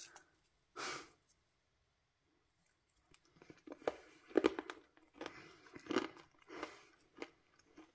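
Foil-lined paper wrapper on a roll of Lakrisal salty liquorice pastilles being peeled open by hand: irregular crinkling and tearing, one short rustle about a second in, then a busier run of crackles through the second half.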